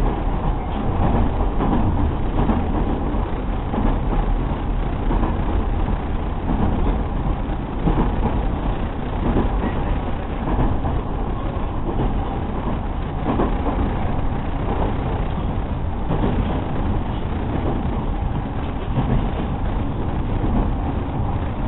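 Running noise of a JR 209 series 2000-subseries electric train heard inside the passenger car: a steady rumble of wheels on the track at speed.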